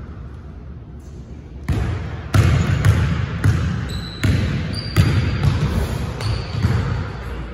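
Basketball dribbled hard on a hardwood gym floor: a run of sharp thumps about every half second, starting about two seconds in. Short high sneaker squeaks come in as the player drives to the basket.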